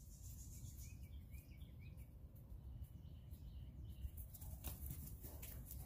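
Faint bird chirps over a steady low rumble of outdoor background noise, with a few faint clicks near the end.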